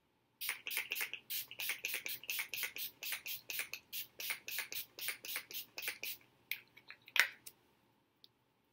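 Urban Decay All Nighter setting spray's pump bottle spritzing in quick succession, about four short hissing sprays a second for some six seconds, then a few slower sprays near the end.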